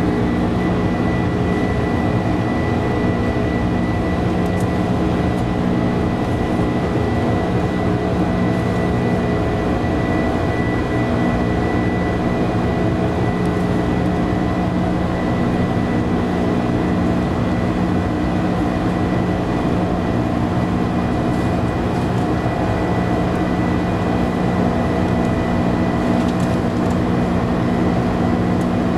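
Jet airliner cabin noise in flight: a steady hum of engines and airflow, with several constant engine tones including a thin high whine.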